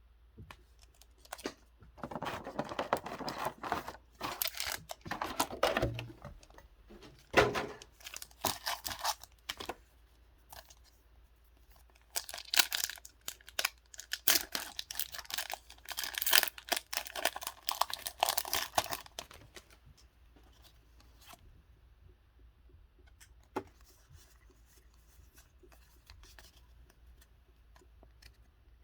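Plastic packaging of a Pokémon trading card box being torn open and crinkled by hand, in two bouts of several seconds each, followed by a few soft handling clicks.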